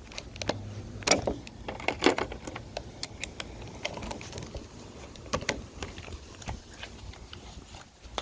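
Metal sockets and hand tools clinking as they are handled and fitted, an irregular string of sharp metallic clicks.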